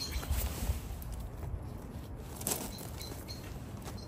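Rustling and brushing of a padded jacket and rose stems right against the microphone as a person reaches into a rose bush, with a few soft knocks. Faint bird chirps come near the end.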